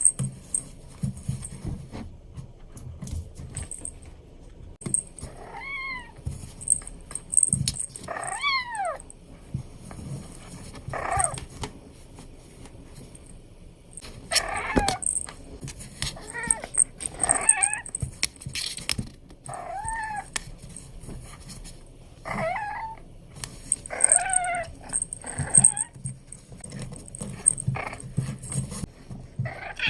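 Abyssinian kitten meowing while playing: about ten short, bell-like calls spread through, several rising and then falling in pitch, among scattered clicks and knocks.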